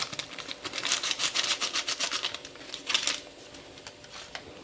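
A utensil stirring thick semolina cake batter in a bowl: quick rhythmic scraping strokes, about six a second, that stop after about three seconds.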